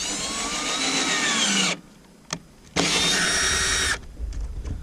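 Power drill running in two bursts, about two seconds and then just over a second, with a short click in the pause between. Its whine rises and then sags during the first burst.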